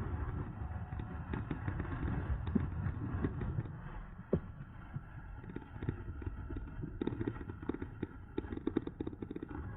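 Riding noise from a mid-drive electric bicycle under way: wind buffeting the mounted microphone, with frequent small rattles and knocks from the bike.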